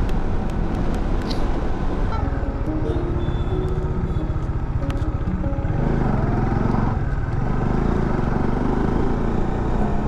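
Motorcycle engine running under way, with wind noise on the microphone. The engine pitch rises around two-thirds of the way through as the bike speeds up.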